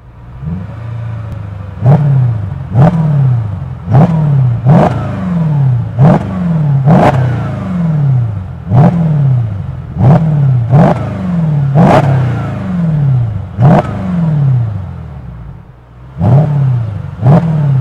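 Mercedes-Benz W207 E500 V8 through a MEC Design stainless steel aftermarket exhaust (Daytona sound version, the quieter one), revved while standing still. It idles briefly, then takes about a dozen short throttle blips, roughly one a second, each rising sharply and falling back to idle.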